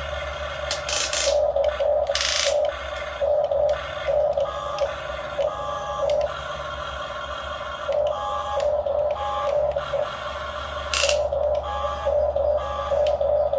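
Small electric motors of a radio-controlled model excavator whining in short starts and stops as its controls are worked, with a steady low hum underneath and a few brief hissing bursts.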